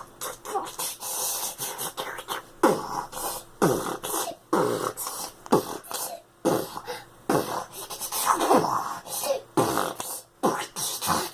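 A small child making vocal sound effects with his mouth: a rapid run of hissing, spitting bursts and short falling-pitch sweeps, roughly one a second.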